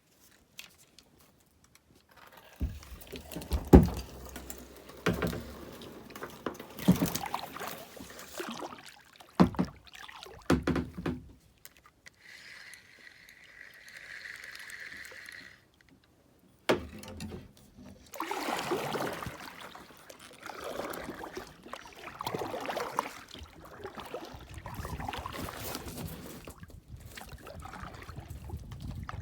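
Kayak paddle strokes splashing and dripping in lake water, in irregular pulls that start a couple of seconds in. A steady whir runs for about three seconds midway.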